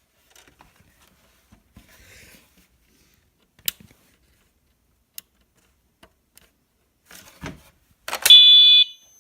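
A few faint clicks and knocks of handling, then about eight seconds in a fire alarm horn starts sounding loudly with a high electronic tone.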